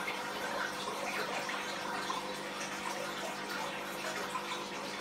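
Steady running and trickling water of an aquarium, with a faint steady hum underneath, typical of a tank's filter or pump.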